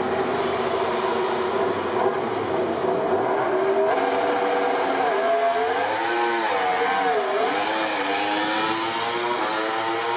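Yamaha YZR-M1 MotoGP bike's inline-four engine held at steady high revs on the start line, then revving up and down as it launches in a practice start, and pulling away with rising pitch near the end.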